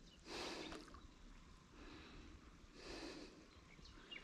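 A man breathing hard near the microphone: two heavy breaths about two and a half seconds apart, winded from the effort of fighting a big carp on the rod.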